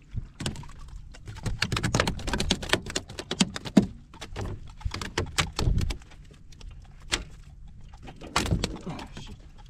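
Clattering and knocking of gear being handled on a fishing kayak's deck: a dense run of clicks and taps for several seconds, then a shorter run near the end.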